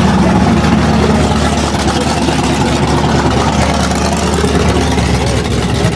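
Car engine idling loudly, a steady low exhaust rumble as the car creeps slowly by.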